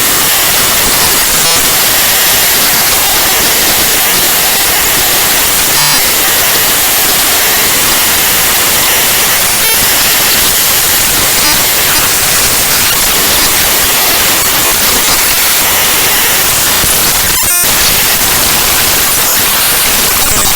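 Raw bytes of the ffmpeg.exe program file played back directly as audio: loud, dense static hiss, broken by a few brief clicks and changes in texture.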